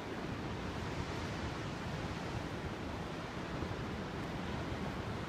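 Steady rush of ocean surf breaking against rocks, with a low rumble of wind on the microphone.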